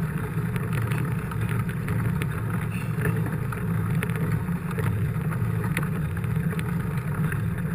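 Mountain bike rolling at speed, heard through an action camera mounted on the bike: a steady low rumble of tyre and wind noise with scattered light clicks and rattles.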